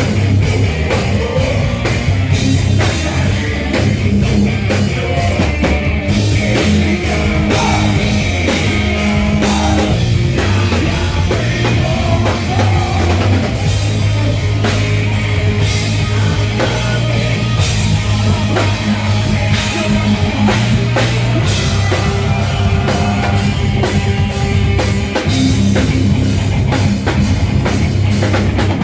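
Live rock band playing loudly: drum kit hits over a steady bass line, with a singer's voice at times.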